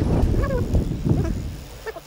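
Wind buffeting the microphone of a camera on a moving bicycle, in gusty low rumbling surges that die down near the end. A short chirp that bends up and down comes about half a second in.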